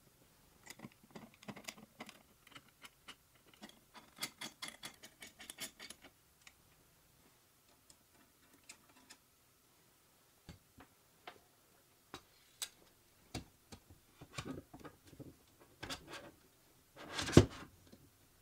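Workbench handling sounds: light scratching, tapping and clicking of a pencil and hands on an aluminium extrusion frame for the first several seconds, then scattered single knocks. Near the end comes one louder thump, as an electric planer is set down into the frame.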